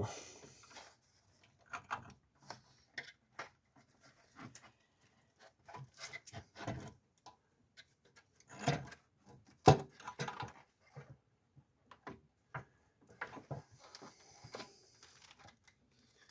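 Hands working a plastic intake manifold and its hoses and wires down into a car's engine bay: scattered light knocks, clicks and rubbing, with two louder knocks a second apart about nine seconds in.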